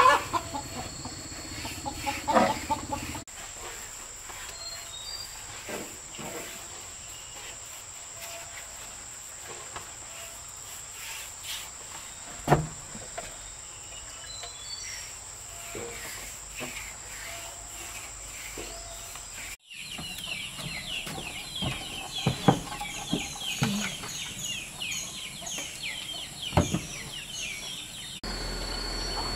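Chickens clucking and chirping over a steady high insect drone, with a few sharp knocks. In the last third the chirps come thick and fast.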